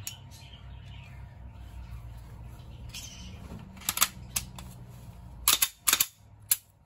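Sarsılmaz SAR9 Gen2 pistol being reassembled: a sharp click about four seconds in, then a quick cluster of louder clacks near the end as the steel slide is fitted back onto the polymer frame and worked.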